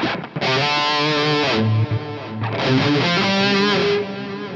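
Distorted electric guitar, a Gibson Les Paul through an Engl Fireball 25 boosted by an Ibanez Tube Screamer Mini, playing two loud phrases. An Earthquaker Devices Dispatch Master adds reverb and delay with its mix at 12 o'clock, and the notes ring on more quietly after the second phrase.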